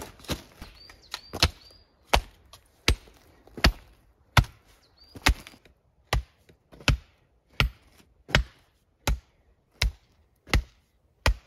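Hand tamper with a long wooden handle driven down into a gravel bed, compacting it: about fifteen sharp thuds at an even pace, roughly one every three-quarters of a second. In the first second or two there is looser crunching of gravel underfoot.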